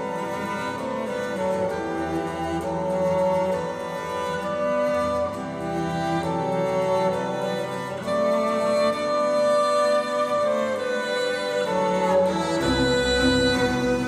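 Live chamber string ensemble of violins and cello playing a slow piece in long, held notes. A deeper bass part comes in near the end.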